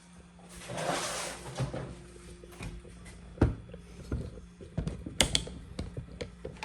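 A brief rustle, then irregular knocks and clicks, the loudest about three and a half seconds in and several close together about five seconds in, over a faint steady hum.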